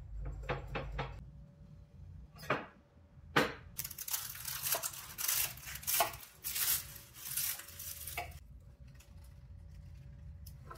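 A few sharp clinks of a utensil against a bowl, then crisp baked filo pastry crackling and crunching for several seconds as a hand breaks into the flaky top layers.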